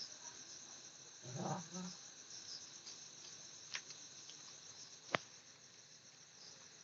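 Crickets chirping in a steady, pulsing high chorus. A brief low sound comes about a second and a half in, and two sharp clicks come later, the second, about five seconds in, the loudest.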